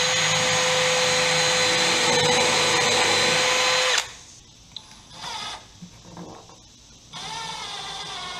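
Milwaukee M12 Fuel 12-volt impact driver running on its lowest speed range, driving screws into wood. The motor whines steadily for about four seconds and stops suddenly. After a pause with small handling sounds, a second, quieter run starts near the end.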